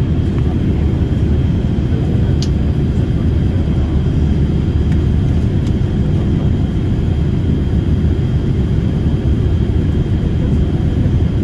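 Airliner cabin noise heard from a passenger seat: a steady, loud, low rumble of engines and airflow with a faint high steady whine. A brief faint chirp sounds about two and a half seconds in.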